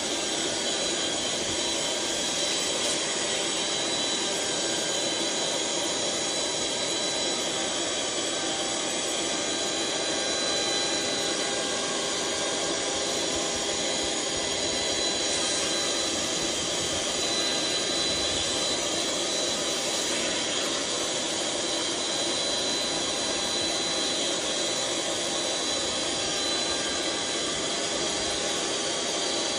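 Electric air pump running steadily, blowing air through a hose into a large vinyl inflatable as it fills: a constant rushing hum with a high steady whine.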